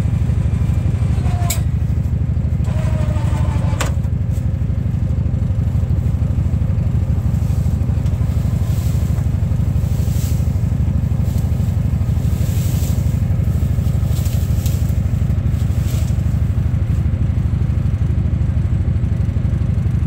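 Gleaner combine's diesel engine running steadily while it stands still. Over it come short scrapes and rustles as tangled stalks and weeds are pulled by hand out of a plugged header.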